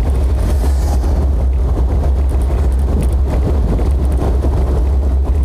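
Vehicle driving, with a steady low rumble of engine and road noise.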